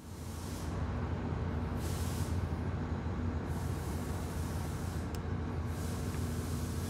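Steady outdoor background noise: a low hum with a hiss over it that swells and fades a few times.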